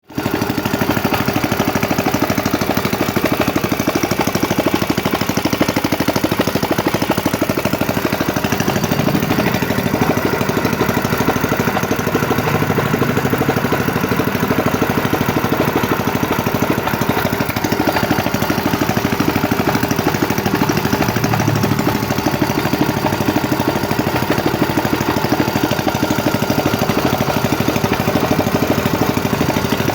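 Proquip 18 hp gasoline engine running steadily.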